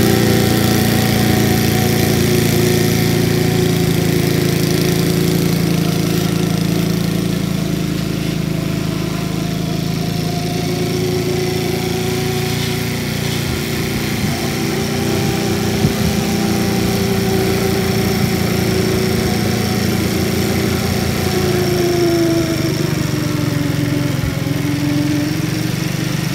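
The Clinton gasoline engine of a 1952 AirCaps Sit'n Cut riding lawnmower runs steadily while mowing, its pitch sagging and recovering slightly near the end.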